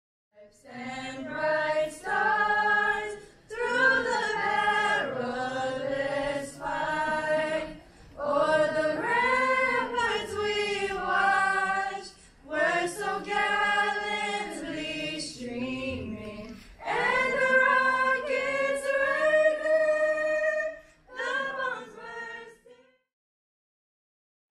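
A choir of mostly female voices singing an anthem together, hands on hearts, in phrases of a few seconds with short breaths between them; the singing stops about a second before the end.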